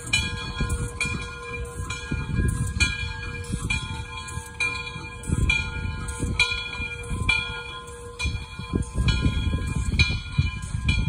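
Frisco 1630, a 2-10-0 steam locomotive, running slowly in reverse with a low, uneven rumble. A bell rings repeatedly over it, about once or twice a second.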